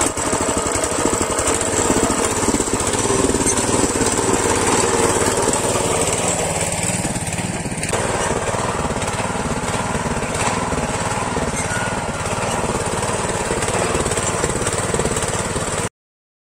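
Small engine of a motor hoe (rotary tiller) running steadily, stopping abruptly near the end.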